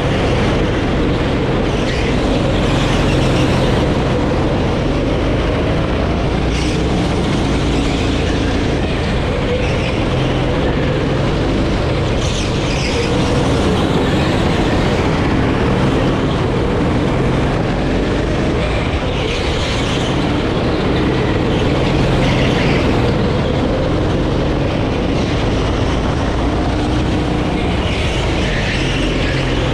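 Onboard sound of a Sodi rental go-kart's engine running under load, its pitch rising and falling a little, with brief hissing swells every few seconds.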